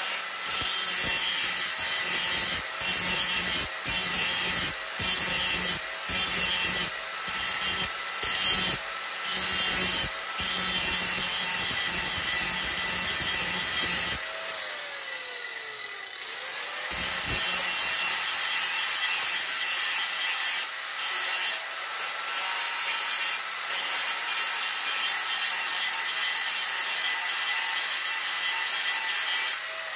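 Angle grinder with a grinding wheel sharpening a worn steel lawn mower blade, the wheel biting in repeated short passes. About halfway it stops and the motor winds down, then it is started again, runs back up to speed and grinds steadily on.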